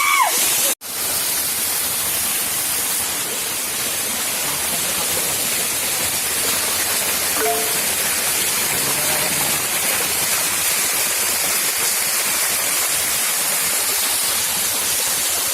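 Waterfall: a loud, steady rush of falling water, cutting out for an instant about a second in.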